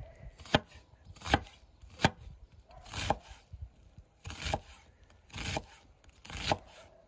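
A large kitchen knife chopping through an onion on a wooden cutting board: about seven separate cuts, roughly one a second. The first few end in a sharp knock of the blade on the board, and the later ones are longer crunches through the onion layers.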